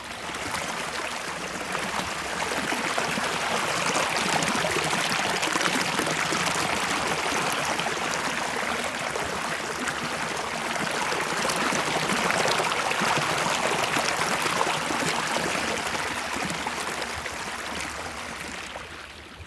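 Creek water rushing close to the microphone: a steady, full hiss of flowing water that builds over the first few seconds and fades near the end, a little hard on the ears.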